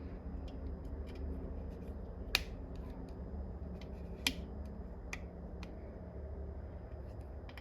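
Faint scattered clicks and ticks of hand tools and metal parts while a helical thread insert is wound into a transmission case, with two sharper clicks about two seconds apart. A steady low hum runs underneath.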